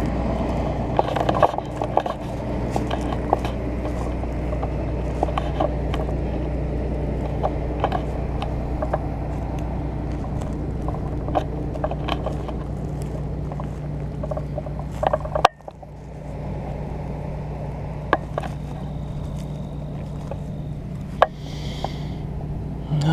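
Steady hum of a combine's engine running, with scattered clicks and rattles of small things being handled close by. The hum drops out sharply for a moment about fifteen seconds in.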